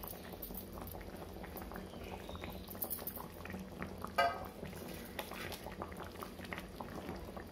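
Masala gravy with besan pieces simmering in a kadhai: a steady bubbling with many small pops and crackles. A short squeak sounds about four seconds in.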